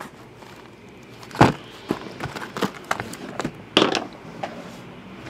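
Cardboard trading-card hobby boxes being handled: knocking and rubbing as one box is pulled from a stacked pile and set down on the table. A single thump about a second and a half in is the loudest sound, with lighter taps after it and another knock near the end.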